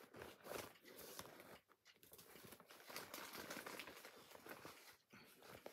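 Faint, irregular rustling and crinkling of craft materials being handled, with a few small clicks.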